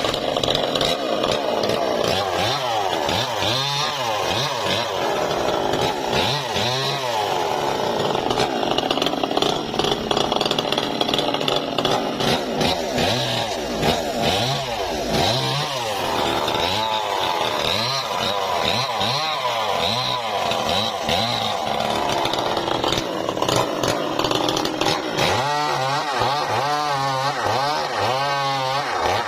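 Engine-driven saw running and cutting through timber, its engine pitch repeatedly rising and dipping as the blade takes load and frees up.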